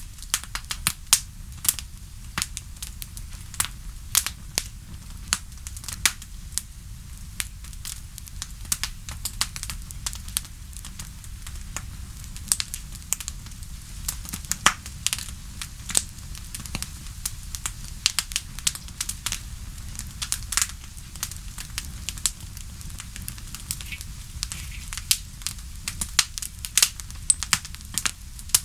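Wood fire crackling, with many sharp, irregular pops and snaps over a steady low rumble.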